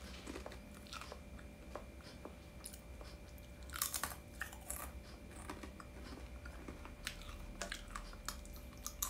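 Crunchy chewing of a dried apple chip: irregular crisp crunches and crackles, with a louder cluster about four seconds in.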